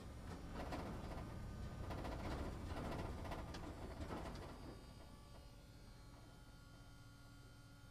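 Roadside traffic noise from passing motorcycles, a rough rumbling wash that dies down about halfway through to a faint steady hum.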